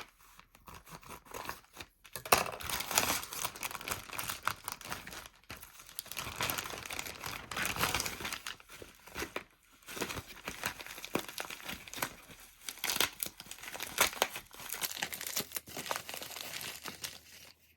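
Packaging being handled up close, crinkling and tearing in irregular bursts, as when a parcel is opened.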